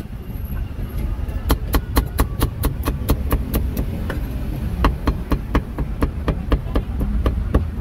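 A meat cleaver chopping roast meat on a thick round wooden chopping block. A quick run of sharp chops comes at about five a second, then after a short pause another run of slightly softer, evenly spaced chops.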